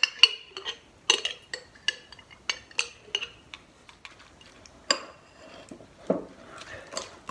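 Metal spoon clinking against a glass yogurt jar and a ceramic bowl as yogurt is scooped out and stirred into muesli: about a dozen sharp, irregular clinks with a short ring.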